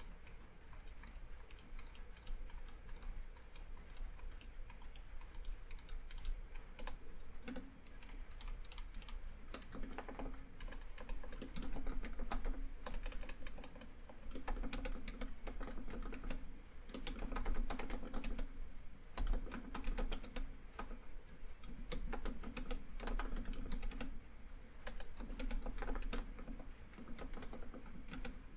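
Typing on a laptop keyboard: uneven runs of keystrokes with short pauses between them, over a steady background of rain on a tin roof.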